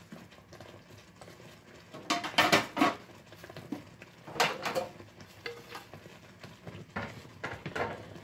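Black tea boiling in a frying pan around poaching chicken cutlets, bubbling steadily. Sharp knocks and clinks of a utensil against the pan come in short clusters, the loudest about two seconds in and more near four and seven seconds.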